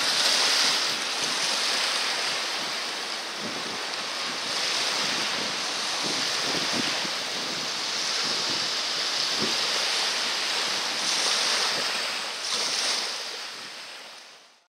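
Sea surf breaking and washing ashore, with wind buffeting the microphone. The noise swells a few times and fades out at the end.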